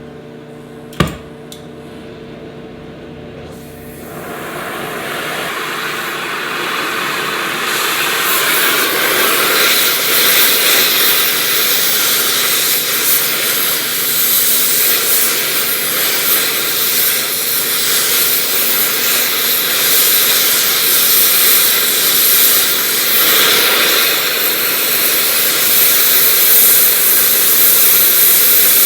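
Gas torch lit and burning with a loud steady hiss, heating a seized, rusted broken bolt to free it. A sharp click about a second in, then the hiss builds over a few seconds and holds steady.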